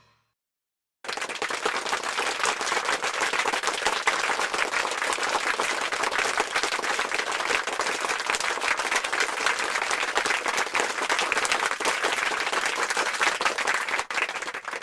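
Crowd applause, a dense steady patter of many hands clapping, starting abruptly about a second in and stopping just before the end.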